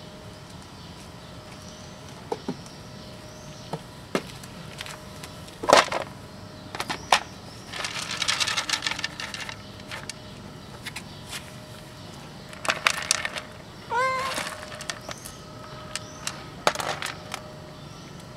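Cat crunching dry kibble: scattered sharp crunches and a longer crackly stretch of chewing. One short meow rising in pitch comes about two-thirds of the way through.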